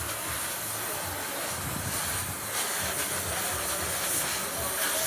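Gas welding torch flame hissing steadily while aluminium filler rod is melted onto an alloy wheel rim to build up a damaged edge.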